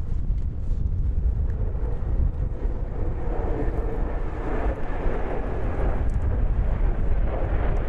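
Jet engine roar of a formation of military jets flying overhead, growing louder about three seconds in over a steady low rumble.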